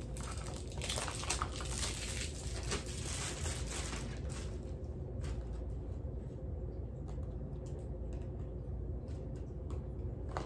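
Small clicks, taps and rustles of a small cosmetics box and jar being handled and opened, busy for the first few seconds and then sparser, over a steady low hum.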